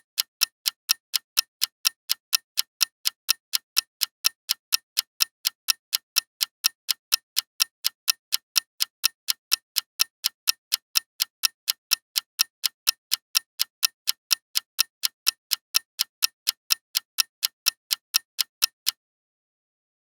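Clock ticking: a fast, even run of sharp ticks, a few each second, that stops shortly before the end.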